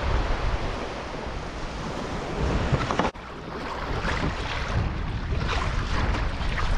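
Wind on the microphone and washing waves; about three seconds in the sound cuts to water splashing and slapping against a Hobie Passport 12 kayak's hull as it moves through chop, with wind noise.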